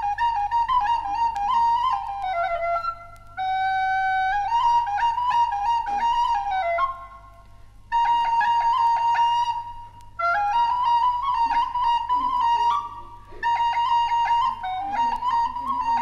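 A solo wind instrument, likely a flute, plays a traditional Moroccan melody in short phrases with brief breaks between them. The notes step and slide around one held central pitch. A steady low hum runs beneath it.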